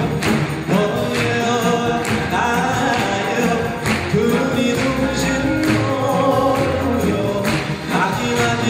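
A male Korean folk singer (sorikkun) singing into a microphone, backed by a full Korean traditional orchestra (gugak orchestra) of strings, winds and percussion.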